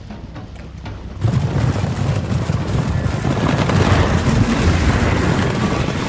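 Film sound effects: a faint low rumble, then about a second in a sudden loud, sustained rumbling roar of dense noise.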